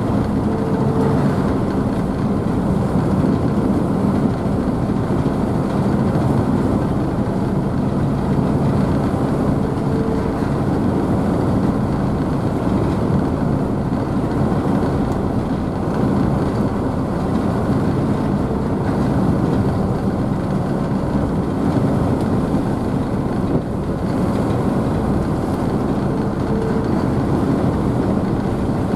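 Car ferry's engines running steadily with the churn and spray of the wake behind the stern: a constant low rumble with a held engine hum.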